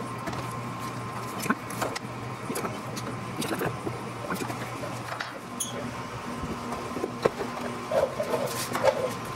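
Light clicks, taps and scrapes of a hand-held aluminium speed square and a marker being worked against masking tape on an aircraft's aluminium wing skin while layout lines are drawn, over a steady hum.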